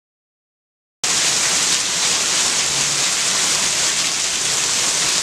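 Silence for about a second, then heavy rain falling steadily, starting abruptly.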